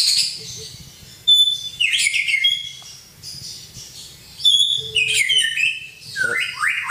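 White-rumped shama (murai batu) singing in several short bursts of rich, fast, sweeping notes, with brief pauses between phrases.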